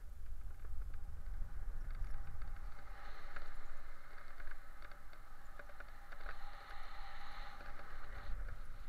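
Wind rushing over a helmet-mounted camera's microphone in paragliding flight: a steady low rumble of airflow with scattered light ticks and rustles. The rushing swells twice.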